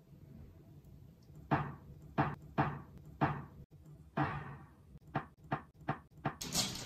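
A bully-stick chew held in a corgi's mouth knocking against the front of a bed's drawer: about five sharp knocks, then a quicker run of lighter taps.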